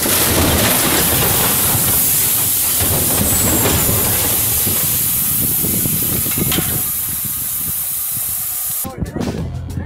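Rockslide: boulders tumbling and crashing down onto a truck, heard as a loud continuous rushing hiss that cuts off abruptly near the end.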